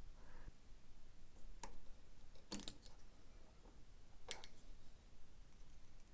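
A few faint, scattered clicks of small metal spade terminals and plastic connector housings being handled and unclipped from a cordless chainsaw's controller wiring.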